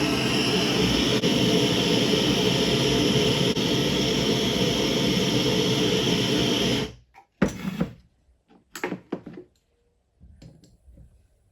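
Heat gun blowing steadily, heating a steel distance piece so that it can be shrink-fitted onto a fork damper stem. It cuts off about seven seconds in and is followed by a few light metallic clinks as the part is handled.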